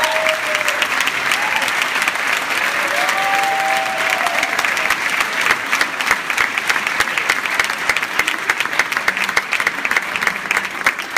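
Theatre audience and cast applauding, with a few cheering voices near the start and about three seconds in. The clapping grows more scattered toward the end.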